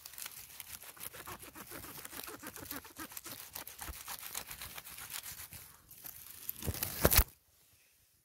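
Dry leaf litter and pine needles crackling and rustling as a wild mushroom is cut at the stem with a knife and lifted out by hand. A loud burst of handling noise comes shortly before the end, then it falls almost silent.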